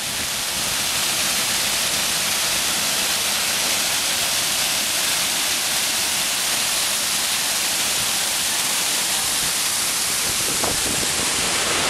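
Small waterfall pouring over a rock ledge into a pool, a steady, even rush of falling and churning water.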